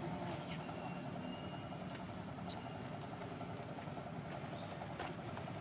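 Steady low engine-like rumble, as of a motor running at a distance, with a faint thin whistle starting about half a second in and lasting about a second and a half, and a single short click a little before the middle.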